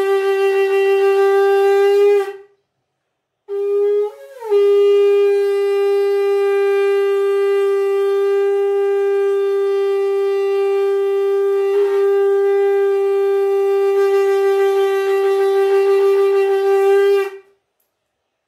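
Conch shell (shankh) blown in long steady blasts on one pitch: a blast ends about two seconds in, and after a short breath a second blast starts with a brief upward crack in pitch, then is held steadily for about thirteen seconds before stopping. It is the ritual conch call blown before the shrine door is opened for worship.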